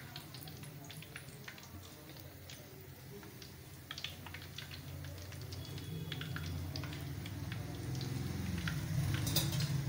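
Besan pakoras deep-frying in hot ghee: the oil bubbles and crackles with many small scattered pops, with a low hum that grows louder toward the end.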